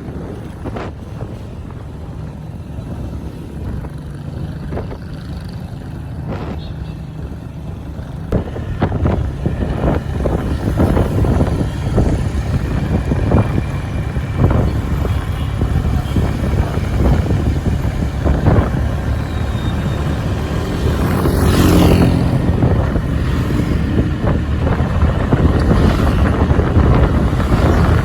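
Wind buffeting the microphone on a moving Honda Click 125i scooter, mixed with engine and road noise. It gets louder about a third of the way in, as if speeding up, and a brief sharp sound cuts through about three-quarters of the way in.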